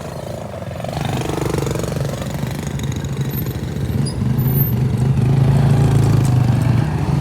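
Kids' ATV engines running steadily, getting louder about five seconds in.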